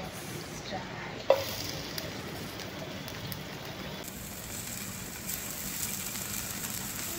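Rounds of frozen egg frying in hot oil in a non-stick pan: a steady sizzle that turns brighter about four seconds in, with one sharp tap about a second in.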